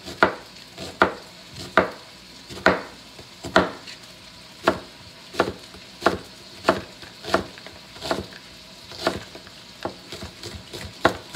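Chef's knife chopping a red onion on a cutting board: sharp knocks about one to two a second, coming quicker in the second half. Chicken browning in butter and oil sizzles steadily behind.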